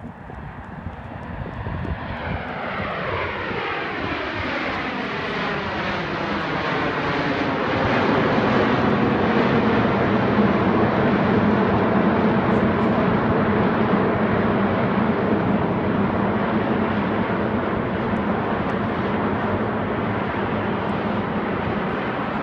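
CT-114 Tutor jets of the Snowbirds formation flying overhead, each powered by a single J85 turbojet. Their jet noise builds over the first several seconds with a sweeping, falling whoosh as they approach, then stays loud and steady as they pass.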